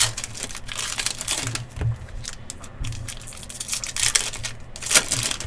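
Plastic and foil trading-card packaging crinkling and tearing in a dense, irregular run of rustles and rips as a box of football card packs is opened and handled.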